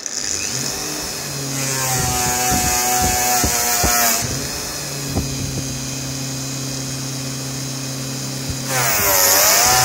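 Electric polishing motor starting and spinning a coarse abrasive wheel at about 3000 rpm with a steady hum. About a second and a half in, and again near the end, fabric is pressed against the turning wheel, adding a loud hissing rasp and a whine. The second time the whine dips in pitch and recovers as the wheel is loaded.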